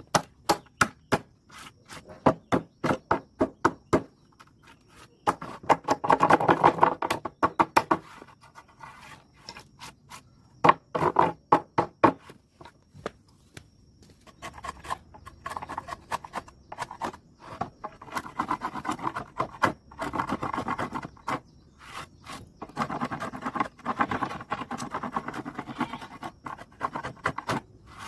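Hand work on wood: a quick run of sharp taps, about three a second, for the first few seconds, then long scraping and rubbing strokes through the rest.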